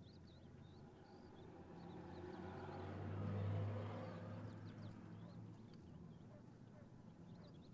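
A motor vehicle passing by, its sound rising to a peak about three and a half seconds in and then fading away. Small birds chirp throughout.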